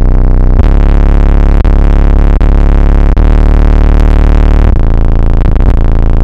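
Loud bass-heavy electronic music played through a 10-inch PowerBass home-audio subwoofer in a ported box in a car trunk, driven by a home audio receiver. The bass notes change every second or so, and the recording is pinned at full level and distorted.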